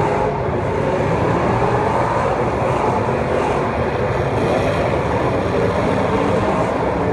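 Several racing engines running hard together during a race, their pitches wavering and overlapping as the cars circulate.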